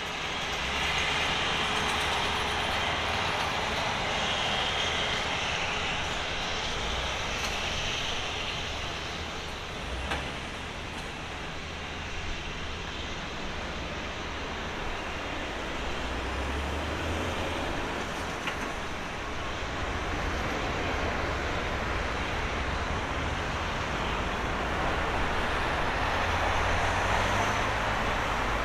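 Boeing 787-10 airliner's Rolls-Royce Trent 1000 jet engines: a steady jet roar through the approach, touchdown and rollout on the runway. It dips slightly partway through and grows louder again near the end as the plane rolls nearer.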